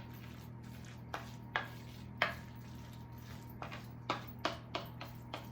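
Utensil knocking against a mixing bowl as a thick food mixture is stirred: about eight short, irregular taps, some louder than others.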